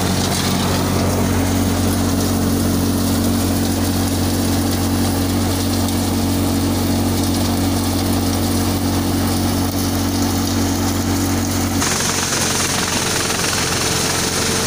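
Tractor-driven Sardar threshing machine running steadily, a low droning hum from the engine and thresher drum as dried crop is fed in. Near the end the sound changes abruptly to a hissier steady machine noise.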